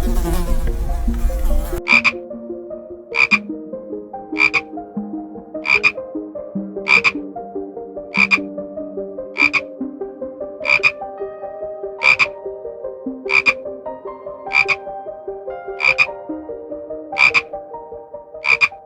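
A frog croaking in an even rhythm, one call about every 1.3 seconds, about fourteen calls in all. The first two seconds hold a different, noisier sound before the croaking begins.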